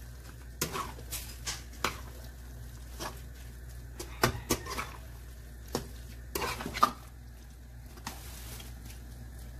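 Spatula scraping and knocking against a nonstick pan while tossing spaghetti in a thick cream sauce, in irregular clicks and scrapes, with the loudest knock about two-thirds of the way through.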